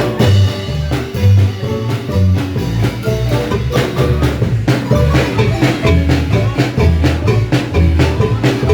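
Marimba music with bass and a steady drum beat.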